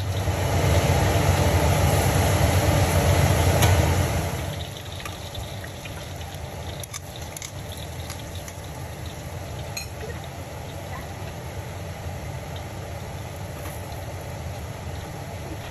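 Chicken nuggets frying in hot oil in a wok, sizzling loudly for about the first four seconds and then settling into a quieter, steady sizzle over a steady low hum.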